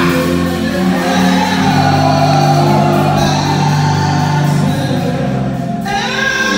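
Live gospel singing through handheld microphones: a man's lead voice holding long notes, with other voices joining, over music.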